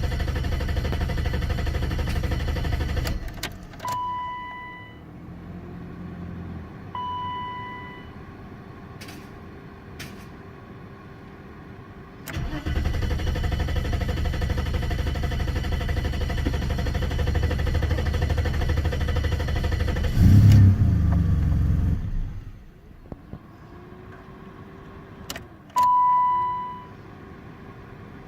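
BMW E32's M30 six-cylinder engine being cranked on the starter in repeated start attempts. It turns over for about three seconds, then again for about ten seconds with a brief surge near the end before it cuts off. Short high beeps sound between attempts. The car has a hard-start problem.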